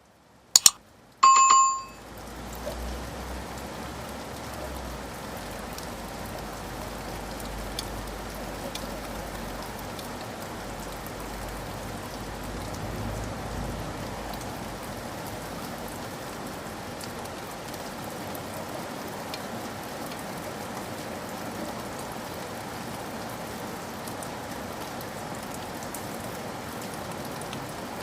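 Steady rain, an even hiss with scattered faint drop ticks and a low rumble in its first part. It sets in about two seconds in, after two sharp clicks and a short ringing ding.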